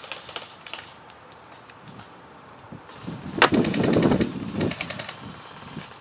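Airsoft gunfire: a sharp crack about three and a half seconds in, followed by about a second and a half of fast rattling clicks.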